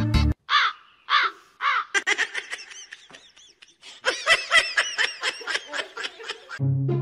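Ginger cat chattering: three drawn-out chirping calls, then a fast run of short, clipped chirps at about five a second. Background music cuts back in near the end.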